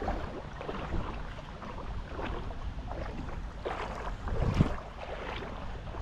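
Hooked smallmouth bass thrashing and splashing at the water's surface while being reeled in, in irregular small splashes with one louder splash about three-quarters of the way through.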